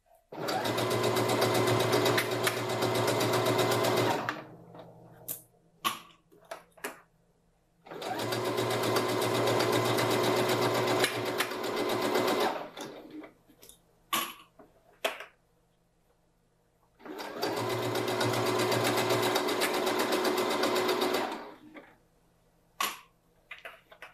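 Electric sewing machine stitching a straight seam through fabric in three runs of about four seconds each. Between the runs come short pauses with small clicks and rustles as the fabric is repositioned.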